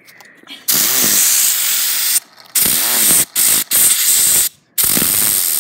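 Compressed air hissing from an air compressor's blow nozzle in several loud blasts with short breaks, blowing on a LEGO fidget spinner to spin it.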